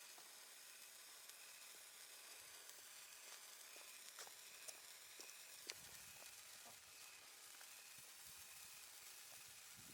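36-inch Morning Glory sparkler burning with a faint, steady fizzing hiss and a few small crackles.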